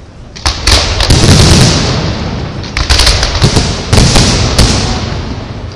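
Aerial fireworks shells bursting overhead: after a brief lull, loud bangs start about half a second in and follow in quick succession, each trailing off in a long rumble.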